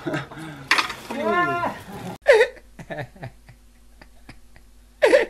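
A person's voice in a few gliding, drawn-out sounds, then after an abrupt cut a man's short, high-pitched, laugh-like squeals over a faint steady hum.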